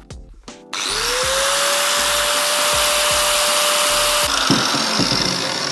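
Electric angle grinder starting up with a whine that rises to a steady pitch, grinding a small metal part held in a vise. About four seconds in the whine cuts off while the grinding noise carries on, fading.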